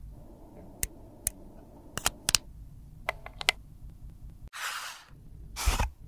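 Sharp plastic clicks of MAC lipstick tubes and caps being handled and set down, about a dozen in the first three and a half seconds. After a brief dropout come two short rustles of a soft fabric pouch, the second louder and ending in a dull thump.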